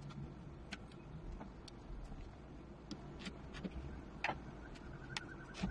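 Scattered, irregular light clicks and ticks of a screwdriver and small metal screws as a snare drum's strainer is unscrewed from the shell, with one sharper click a little past four seconds in.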